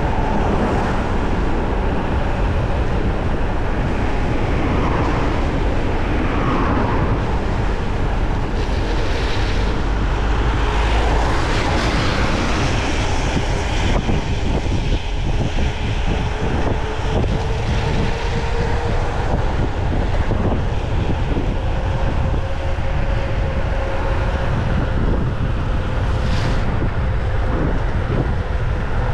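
Mountain bike ridden over a rough track: wind rushing over the chest-mounted camera's microphone and tyre rumble, with frequent small rattles and knocks from the bike.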